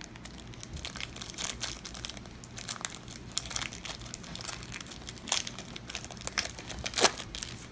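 Foil wrapper of a Yu-Gi-Oh! Tactical Evolution booster pack crinkling and crackling as it is opened, a dense run of crackles with the loudest near the end.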